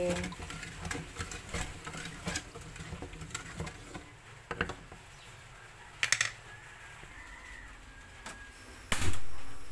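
Wooden spoon stirring mango gulaman in an aluminium pot, a run of light clicks and scrapes against the pot, followed by a double knock and one louder knock near the end.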